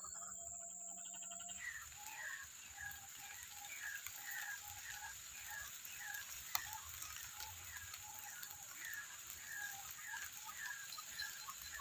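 White-breasted waterhen's harsh 'kru-ak' call, repeated about twice a second from a couple of seconds in. There is one sharp click about halfway through.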